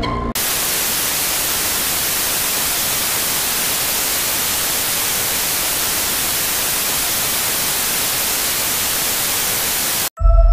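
TV static: a loud, steady white-noise hiss that cuts in abruptly just after the start and cuts off suddenly near the end. A deep boom follows right at the end.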